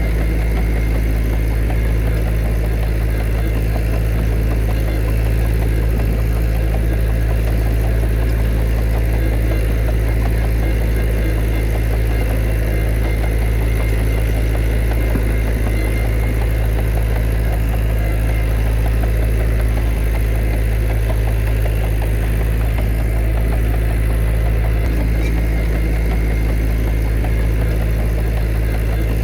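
Heavy diesel engine of earthmoving equipment running at a steady, unchanging speed, a constant low drone.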